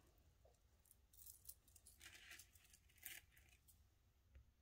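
Near silence with a few faint clinks and rustles, about a second, two seconds and three seconds in, as costume jewelry (faux-pearl beads and chains) is handled.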